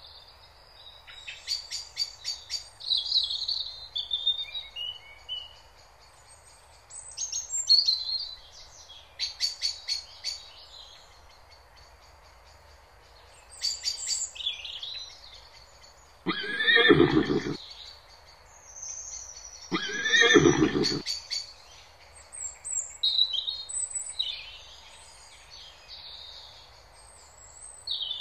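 Zebras calling in repeated bouts of high-pitched, yipping bark-brays every few seconds, with two louder, fuller calls about two-thirds of the way through.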